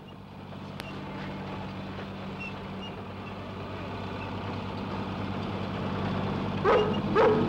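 A low steady drone slowly growing louder, then a rough collie whining twice in short bursts near the end.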